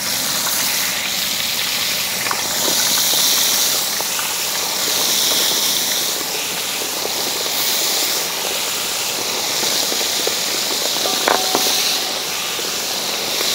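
Turmeric-marinated chicken pieces deep-frying in a wide pan of hot oil: a steady, loud sizzle of bubbling oil that swells and eases in slow waves, with a couple of faint clicks.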